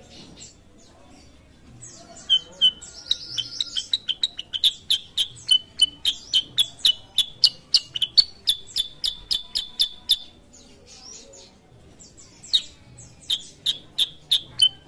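Black-headed bulbul (kutilang sutra) calling in rapid trains of sharp, high chirps, about four a second. It starts about two seconds in, breaks off for a couple of seconds after ten seconds, then starts again.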